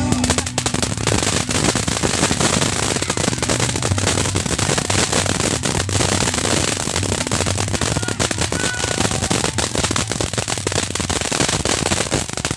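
Phoenix Fireworks 3-series ground fountain firework burning: a steady spray of sparks, hissing and thick with rapid crackling pops.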